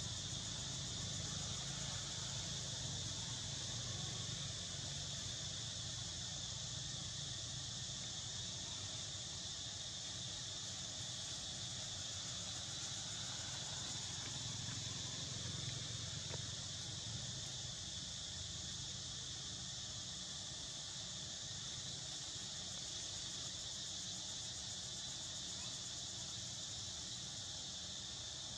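Steady, high-pitched chorus of insects buzzing and trilling without pause, over a low rumble.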